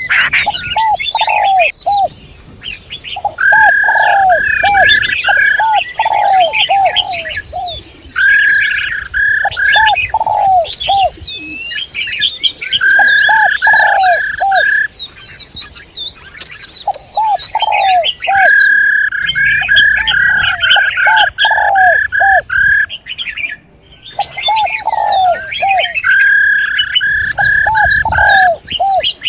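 Several birds calling at once. Runs of short, low arched notes repeat in groups, alternating with bursts of a steadier, higher note, under dense, fast, high-pitched chirping. The calls drop out briefly twice, a couple of seconds in and near the end.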